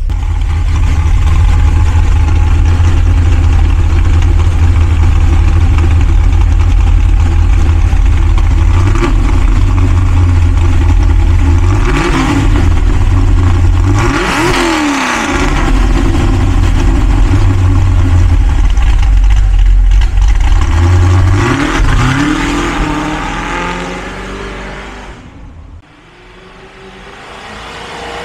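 1969 Chevrolet Nova's custom 632 cubic-inch (10.4-litre) V8 idling loudly through its exhaust, blipped up to a rev and back down about four times. In the last few seconds the sound fades well down as the car moves off, then grows again.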